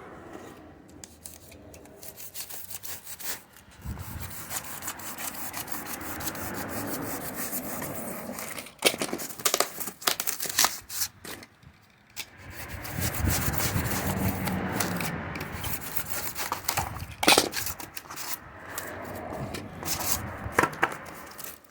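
A cutter cutting out a circle: uneven rubbing and scraping strokes with sharp clicks here and there, pausing briefly a little past halfway.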